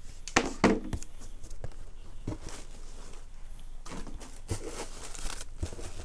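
Tissue paper rustling and a cardboard shoe box being handled, with a few soft knocks and scuffs spread through.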